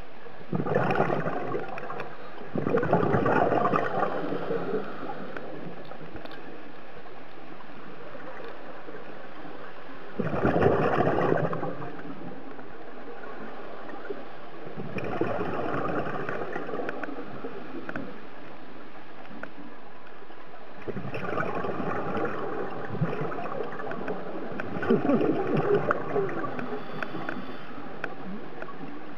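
Scuba diver breathing underwater through a regulator: several bursts of exhaled bubbles a few seconds apart, with quieter stretches between.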